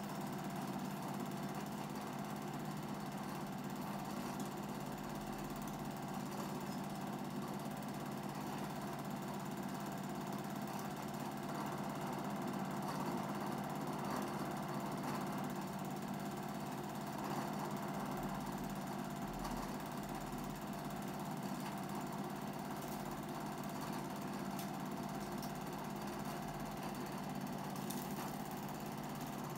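A cine film projector running steadily: the unbroken mechanical whirr of its motor and film transport.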